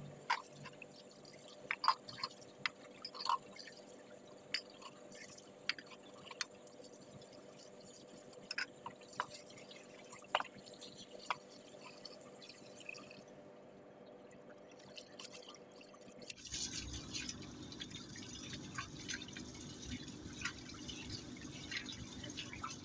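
Water dripping and splashing with sharp clinks of steel pots and utensils being washed by hand. About sixteen seconds in, this gives way suddenly to a louder, steadier sound.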